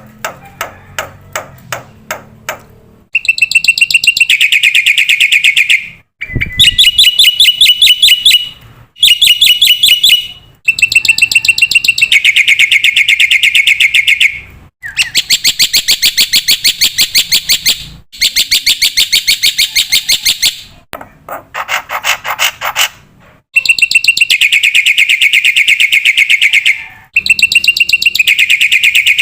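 Black-winged myna (jalak putih) singing loudly in bouts of fast, rattling, repeated notes, each bout lasting a couple of seconds with short pauses between. It opens with a run of separate clicking calls, and there is a lower, slower chattering phrase about two thirds of the way in.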